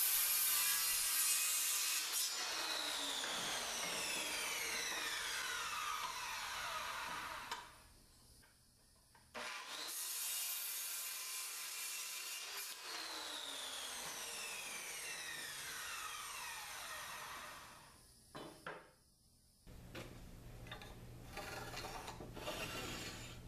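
Handheld circular saw cutting a board twice, its base run along a speed square as a saw guide; each time the motor's whine falls in pitch as the blade coasts down, then stops. Near the end, quieter scratching of a pencil marking lumber.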